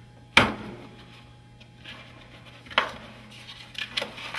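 Handling knocks: one sharp knock about half a second in, a weaker one near three seconds, then a run of quick clicks and taps near the end, as hard objects are handled over a cardboard pizza box.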